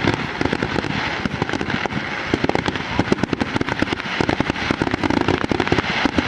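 Aerial fireworks going off in rapid succession: many overlapping bangs and crackles a second with no pause, typical of the closing barrage of a display.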